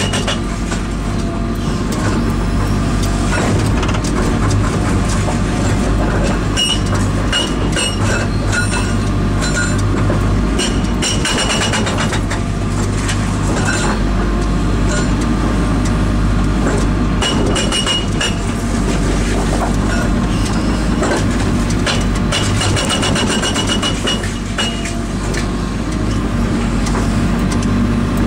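Diesel engine of the machine driving an INDECO hydraulic hammer, running steadily at about half throttle, which holds the hydraulic oil flow down so the hammer is not overdriven. A high whine comes and goes over the engine.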